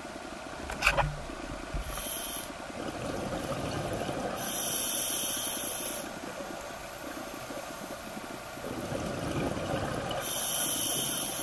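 Scuba diver breathing through a regulator underwater: a rush of exhaled bubbles three times, with quieter breathing between. A sharp click about a second in.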